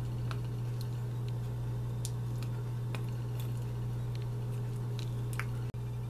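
A steady low hum under sparse, faint ticks and crackles as a stick is worked in a small steel pot of hot molten pine pitch.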